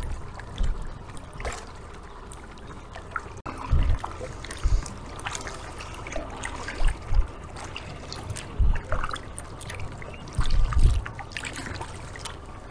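Kayak paddle strokes splashing and dripping in choppy lake water, with irregular gusts of wind rumbling on the microphone.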